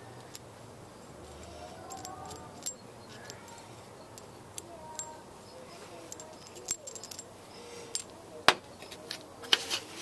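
Steel washers and a spacer clinking against a large bolt as they are handled on it: a scatter of short metallic clicks, the loudest about eight and a half seconds in. Near the end, a plastic packet crinkles.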